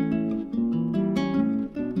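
Background music played on acoustic guitar, notes plucked and strummed in quick succession.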